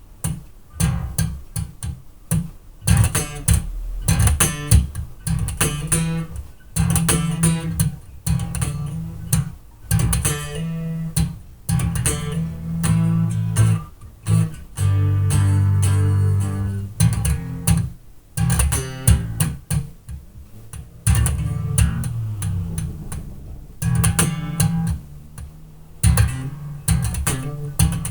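Five-string electric bass played through a bass amp cab: a line of short plucked notes, with a longer held note about fifteen seconds in. Picked up by a webcam microphone across the room.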